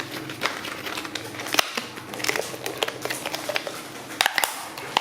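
Irregular clicks and crackles of plastic toy packaging being handled and opened by hand, with a few sharper snaps about one and a half seconds in and again near the end.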